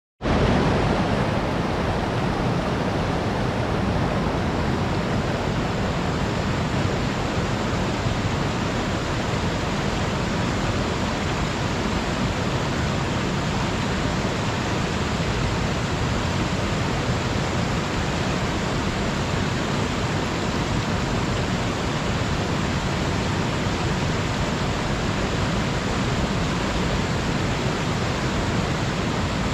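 Steady rush of fast river water tumbling over rocks in a gorge's rapids, a loud, even white-water roar with no let-up.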